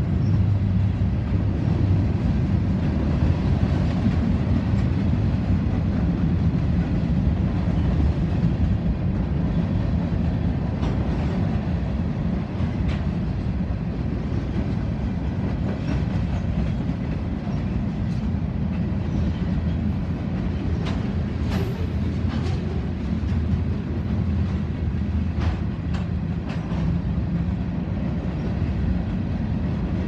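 Freight train cars, mostly covered hoppers, rolling steadily past: a continuous low rumble of steel wheels on rail with scattered sharp clicks and clanks.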